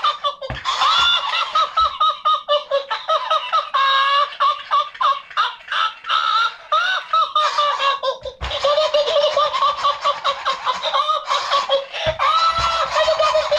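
Elmo toy's built-in voice unit playing Elmo's giggles and chatter through its small speaker, a thin sound with nothing below the mid-range. A few low knocks come from the toy being handled.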